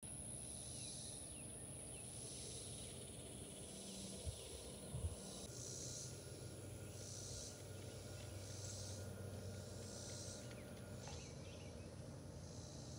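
Faint outdoor ambience of insects calling in regular high pulses about once a second, over a low steady hum, with two soft thumps about four and five seconds in.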